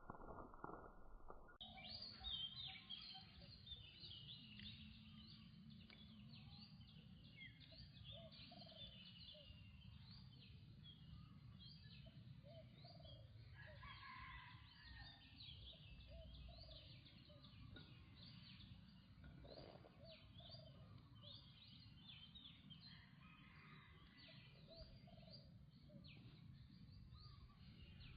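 Faint chorus of many birds chirping, over a low steady background rumble.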